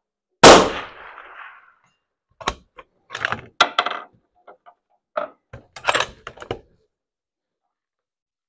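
A single shot from a scoped bolt-action .308 Win rifle about half a second in, dying away over about a second. From about two and a half seconds on, a run of metallic clicks and clacks as the bolt is worked to eject the spent case and chamber the next round.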